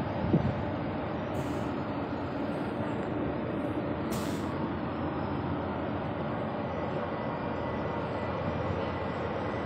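Steady rumble of heavy industrial machinery running, with a short loud knock and brief falling squeal just after the start.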